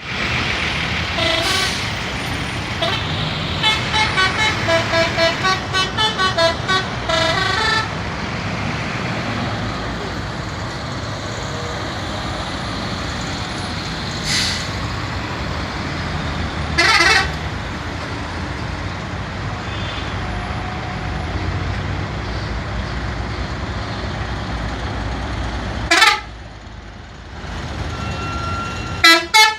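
Multi-tone 'telolet' bus horn playing a quick, stuttering tune of short notes over steady traffic noise. A few single horn blasts follow, and the tune starts up again near the end.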